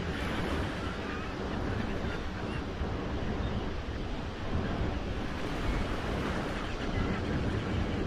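Ocean surf breaking steadily on a beach, a continuous wash of waves. A few faint bird chirps come about a second in.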